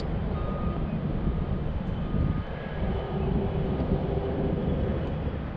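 A steady, low engine drone with a faint thin whine above it.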